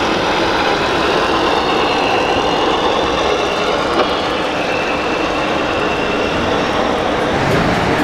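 Steady running noise of radio-controlled model trucks driving, mixed with the din of a crowded exhibition hall.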